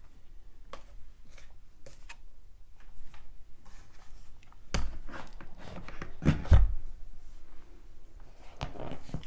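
Handling noise from a carbine being put away and the next one picked up: fabric rustling and small clicks, with two heavier thumps about five and six and a half seconds in, the second one the loudest.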